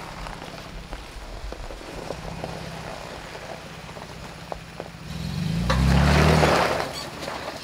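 Toyota FJ Cruiser's 4.0-litre V6 running at low revs as the truck moves through a shallow creek. About five seconds in, the engine revs up for a couple of seconds along with a rush of splashing water, then settles back.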